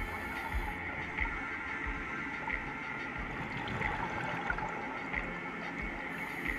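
Underwater sound of a scuba dive: steady water noise with scattered low knocks and a faint tick about every two-thirds of a second. A high hiss sounds at the start and again near the end.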